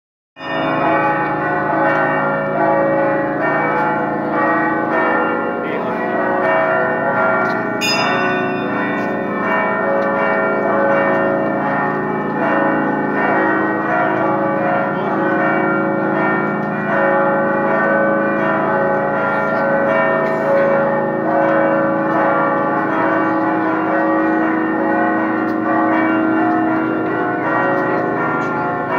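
Church bells ringing in a continuous festive peal, many strokes overlapping.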